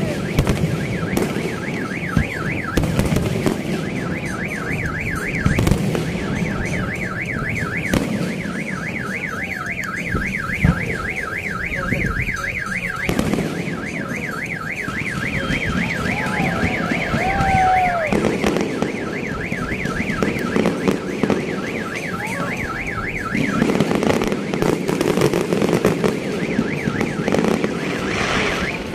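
A vehicle's electronic alarm warbling fast and evenly up and down, starting about a second in and cutting off abruptly a little over twenty seconds later, with occasional fireworks bangs and a steady crowd rumble beneath.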